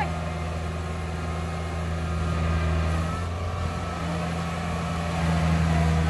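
Tracked rice combine harvester's engine running steadily at an even pitch as the machine crawls through deep mud.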